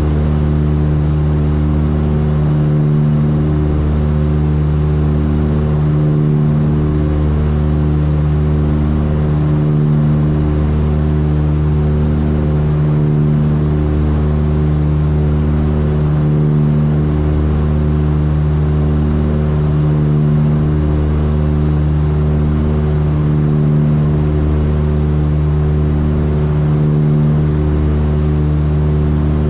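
Cabin drone of a Tecnam P2006T's two Rotax 912 four-cylinder engines and propellers at steady climb power. The drone throbs slowly and regularly, about every three and a half seconds: the beat of the two propellers turning at slightly different speeds, out of sync.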